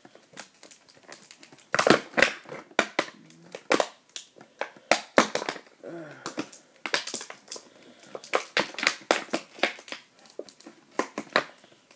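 Toy box packaging being rummaged through by hand, giving irregular crinkling, crackling and sharp clicks as a small piece is worked loose from inside.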